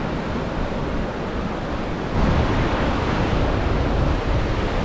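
Ocean surf washing onto a sandy beach, with wind buffeting the microphone; the wash grows louder about two seconds in.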